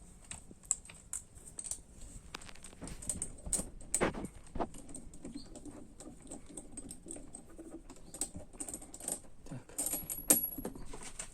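Irregular small metal clicks and clinks of hand tools and bolts while the motorcycle engine's cylinder head is being unbolted, with one sharper click near the end.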